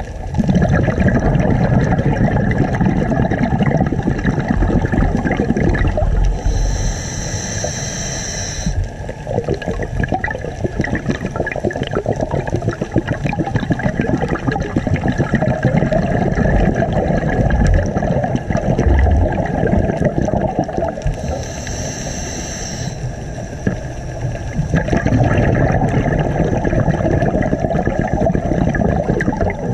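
Scuba diver's regulator breathing heard underwater: a high hiss of inhalation twice, about fifteen seconds apart, with long stretches of rumbling, crackling exhaled bubbles in between.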